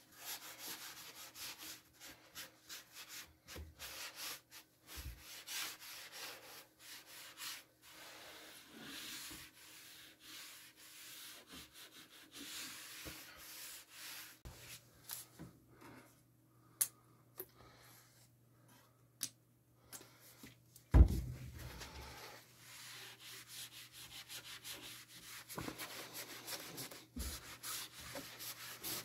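A sponge rubbing liquid finish into bare wooden boards, in quick repeated back-and-forth strokes. The strokes stop for a few seconds past the middle, a single loud thump comes about two-thirds of the way through, and then the rubbing starts again.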